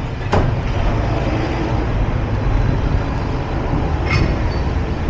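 Semi truck's diesel engine running with a steady low drone. There is a sharp click about a third of a second in and another near four seconds.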